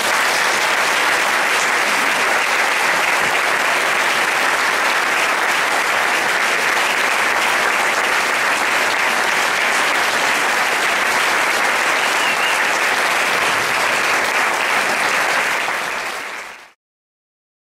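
Large audience applauding steadily in a theatre at the close of a talk, the clapping cutting off abruptly near the end.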